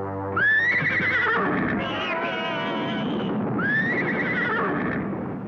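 Cartoon horse whinnying twice, each call rising and then falling, about three seconds apart, over music.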